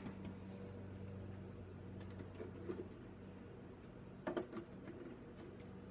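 Faint clicks and light taps of a small vanilla bottle and a plastic measuring spoon being handled, the loudest cluster about four seconds in, over a steady low hum.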